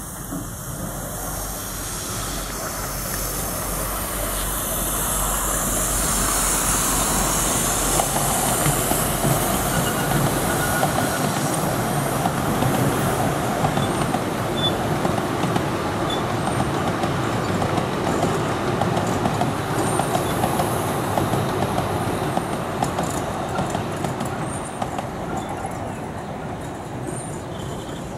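A 10.25-inch-gauge miniature steam train, locomotive and passenger coaches, running past: the rumble and clatter of its wheels on the track grows over the first few seconds, holds steady, then fades near the end.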